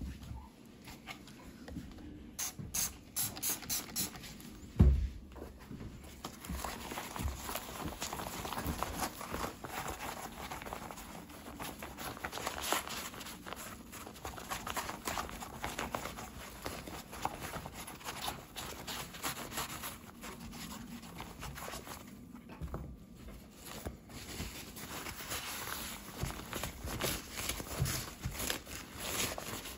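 Hand scrubbing and wiping a clear plastic stroller canopy window with a Magic Eraser sponge and paper towel: a steady scratchy rubbing with crinkling of the thin plastic. There is a quick run of clicks about two to three seconds in and a thump about five seconds in.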